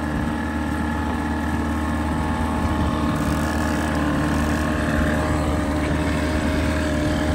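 Boat's outboard motor running steadily at an even pitch.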